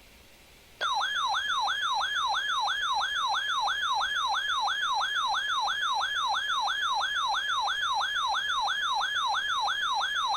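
Weather radio receiver's alarm siren: a loud, rapidly repeating swept tone at about three sweeps a second, starting about a second in after faint hiss. It is the radio's alert for a newly received warning.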